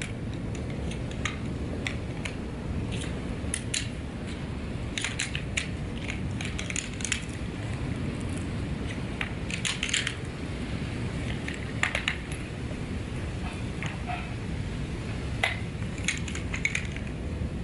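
Metal poles of a folding camping chair frame being pulled apart and folded together by hand: irregular light clicks and clinks, a few sharper than the rest, over a steady low background rumble.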